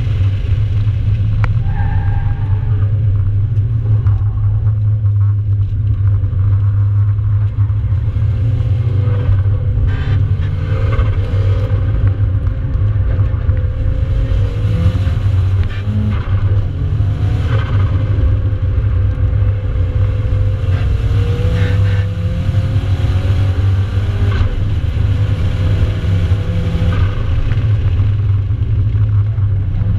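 Nissan 200SX heard from inside its cabin while driven at pace around a circuit: a heavy, steady low drone of engine and road noise, with the engine note rising and falling as the revs change.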